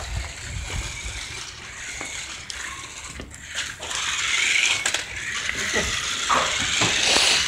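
Small remote-control toy truck's electric motor whirring in bursts as it drives across a concrete floor, swelling about four seconds in and again near the end, with a few clicks.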